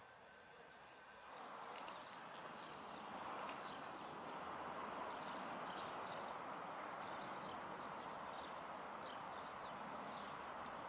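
Faint, steady outdoor hiss that grows louder about a second in, with many short, high chirps and clicks scattered through it.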